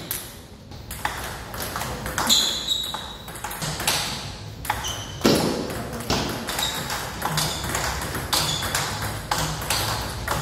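Table tennis rally: the ball clicks back and forth, struck by the paddles and bouncing on the table, several hits leaving a brief high ping.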